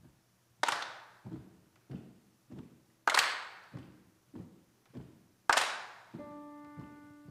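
A steady percussive beat with a room echo: a loud, sharp hit about every two and a half seconds and softer knocks in between. About six seconds in, a woman's voice begins holding the first sung note of the song.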